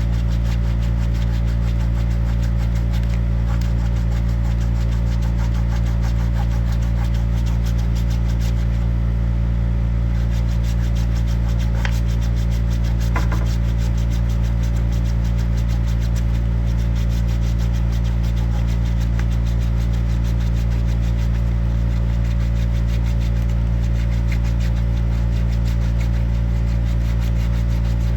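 Steady low mechanical hum at a constant level, with a couple of faint clicks near the middle.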